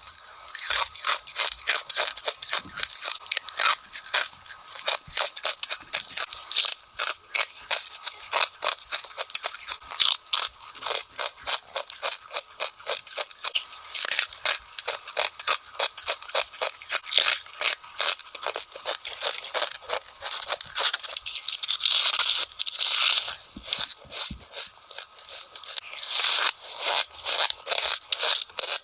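Rapid, crisp crunching of frost from a freezer being bitten and chewed in quick succession, a dense run of sharp squeaky crackles, several a second.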